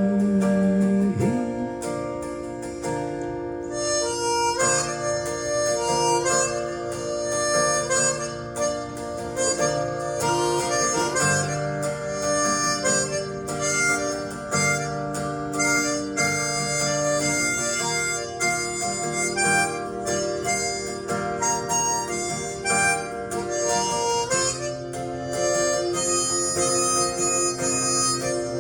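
Instrumental music break: a harmonica playing a melody of held notes over strummed acoustic guitar, in a country-style song.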